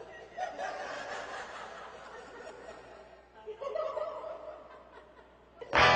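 Faint chuckling and laughter from people, in two short spells. Just before the end, loud music cuts in abruptly.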